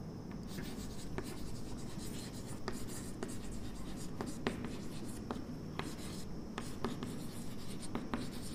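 Chalk writing on a blackboard: faint scratching of the chalk across the board, with irregular sharp taps as it strikes the surface, roughly one or two a second.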